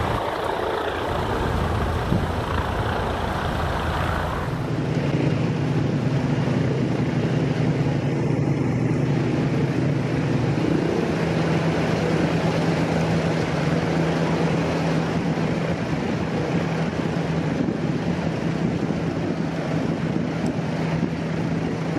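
A steady low engine drone with a clear hum that steps up in pitch about eleven seconds in. Before it, a louder rushing noise cuts off sharply about four and a half seconds in.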